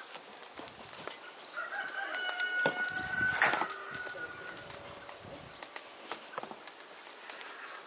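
A rooster crows once, a long call of a few seconds starting about a second and a half in. Light clicks and taps of dough being kneaded on a wooden board are heard throughout.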